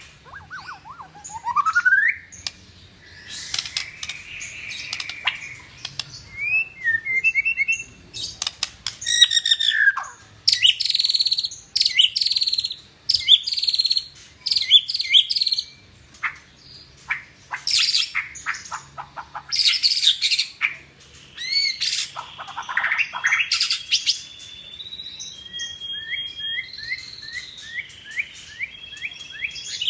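White-rumped shama (murai batu) singing continuously: phrase after phrase of loud whistles, rising and falling glides and rapid chattering trills, with short pauses between phrases.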